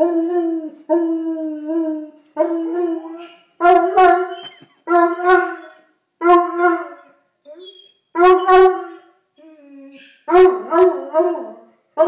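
Coonhound baying: a string of loud, drawn-out howling calls under a second each, wavering in pitch. After a short lull in the middle with a few quiet low sounds, the calls come quicker and choppier near the end.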